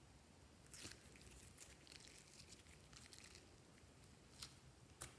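Green slime squeezed and stretched by hand, giving faint sticky crackles for a couple of seconds starting about a second in, then two sharper clicks near the end.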